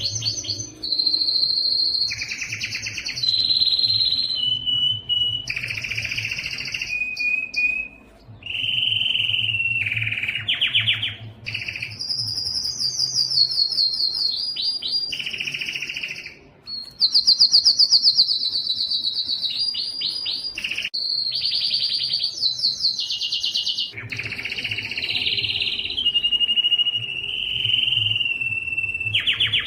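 Domestic canary singing a continuous song of rapid trills and rolls, one phrase after another, each held a second or two before jumping to a new pitch.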